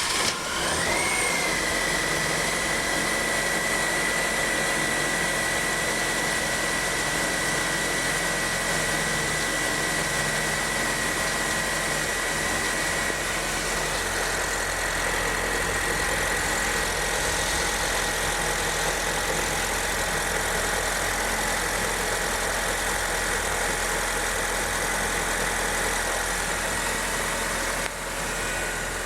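Honda New Civic engine idling just after a cold start, with a thin steady high whine over it that settles a little lower near the end. No metallic, bell-like bearing noise is heard now that the power steering pump bearing has been replaced.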